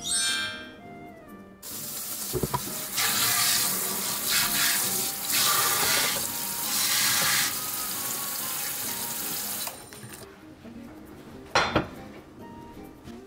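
Water from a tap running and splashing into a wooden sushi rice tub (handai) to wet it, for about eight seconds, then stopping. Two sharp knocks follow near the end.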